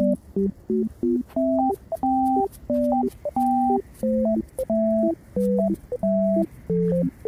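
Background music: a bouncy, simple melody of short, pure beep-like electronic notes over a plain bass line, with brief gaps between the notes.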